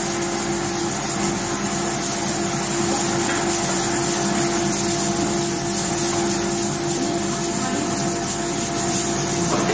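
A steady mechanical hum over an even hiss, holding two steady tones at a constant level.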